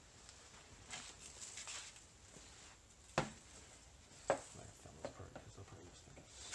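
Faint rustling of a shop towel wiping brake fluid and cleaner off a Brembo brake caliper, with two light knocks about a second apart near the middle.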